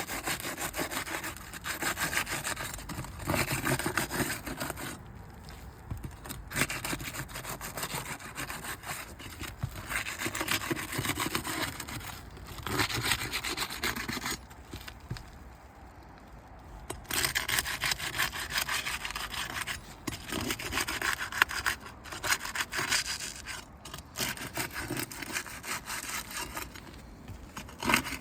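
Asphalt roof shingles being pried loose, their sealant bonds breaking with repeated scraping, rasping strokes and a couple of short pauses.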